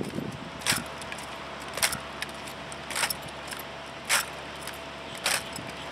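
Drill rifles handled in unison by a drill platoon: five sharp slaps and clacks of hands on the rifles, evenly spaced a little more than a second apart, keeping the count of the silent drill.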